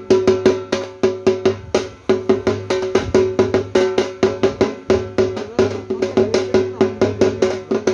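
A small drum beaten with two sticks in a fast, even rhythm of several strokes a second, with a steady drum ring under the strokes.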